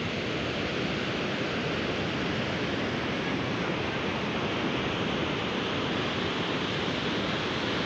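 Steady, even rush of sea surf.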